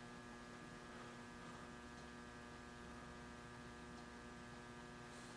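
Faint, steady electrical hum in a near-quiet shop, with a faint low rumble joining about a second and a half in.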